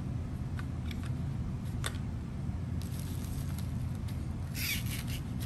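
Light handling noises as a small cardboard box and plastic packaging are set into a padded poly mailer: a few faint clicks and a short crisp rustle near the end, over a steady low hum.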